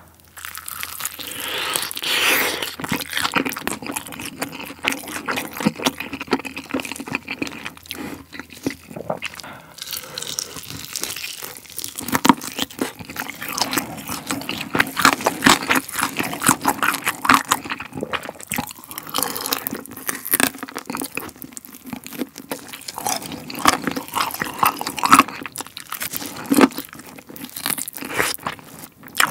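Close-miked eating of a sauce-coated fried chicken drumstick: bites and crunching with chewing, many small crackles and clicks throughout, the bites louder at times.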